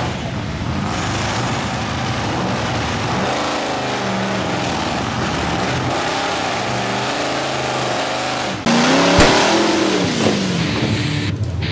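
Lifted Ford mud truck's engine revving hard under load as it churns through deep mud, the pitch rising and falling. About nine seconds in, the sound suddenly jumps louder with a sharp smack as thrown mud hits the camera.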